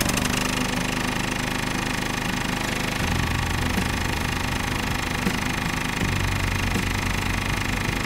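Small motor-driven miniature machine running with a fast, steady rattle; its low hum shifts in pitch about three and six seconds in.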